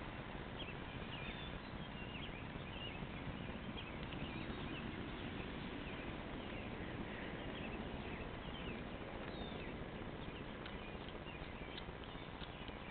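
Domestic cat chewing on a freshly killed rabbit: irregular small clicks and crunches over a steady hiss.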